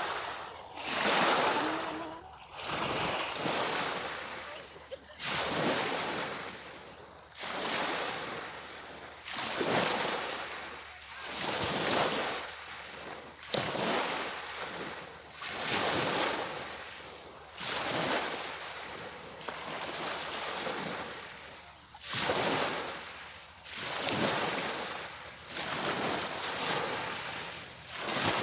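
Small waves washing onto a beach one after another, each surge swelling and falling away every couple of seconds.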